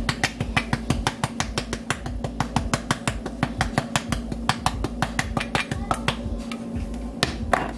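Rapid, irregular clicking taps of a hand against a spice shaker, knocking seasoning out into the pot, several taps a second. The taps thin out after about six seconds, with a sharper one near the end.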